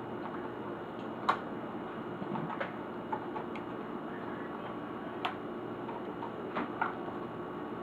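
Scattered sharp clicks and taps at irregular intervals over a steady hiss, as small plastic and metal laptop parts and tools are handled during disassembly.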